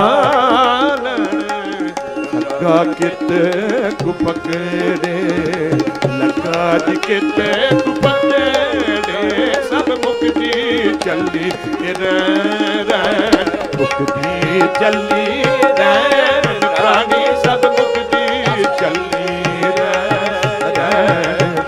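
Tabla keeping a steady rhythm under bowed, fretted string instruments (dilruba type) playing a gliding melody: an instrumental passage of Sikh shabad kirtan.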